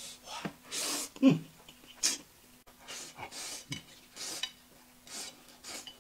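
People eating at a table: a string of short, noisy mouth sounds of eating and breathing, one every half second or so, with light clinks of bowls and chopsticks.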